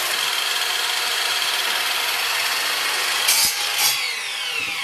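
Electric miter saw running and cutting cedar scrap into kindling, with two short louder cuts a little past three seconds in. Near the end the blade winds down with a falling whine.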